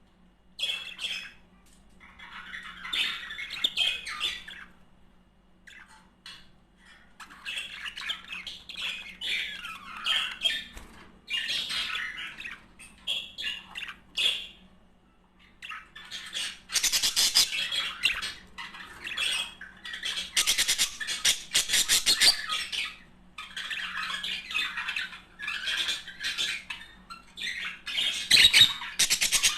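Budgerigars chattering and warbling in bursts of rapid, high-pitched chirps and squawks with short pauses between, turning into harsh buzzy chatter in the second half.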